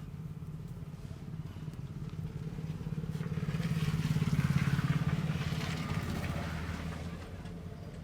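A motor vehicle driving past: its engine grows louder to a peak about halfway through, then fades away.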